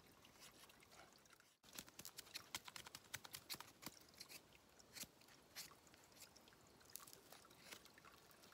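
Fallkniven TK2 knife blade shaving thin curls off a stick to make a feather stick: a run of quiet scraping crackles, densest from about two to five seconds in and sparser after.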